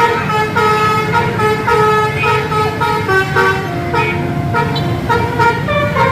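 A bus's telolet musical air horn playing a tune of short notes that step between pitches, several notes sounding together, over a low rumble.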